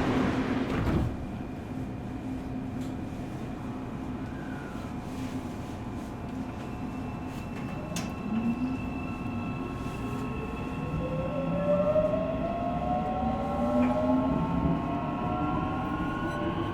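Inside a Korean subway car: a rush of noise cuts off about a second in, leaving a steady hum, then from about halfway the electric traction motors' whine rises steadily in pitch as the train pulls away and accelerates.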